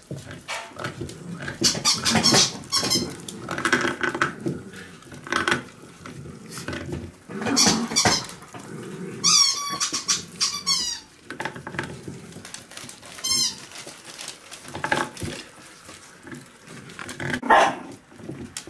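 Miniature pinscher puppy squealing while feeding on a whole rat: high squeals that fall in pitch, a run of them about halfway through and another a few seconds later, among lower animal noises.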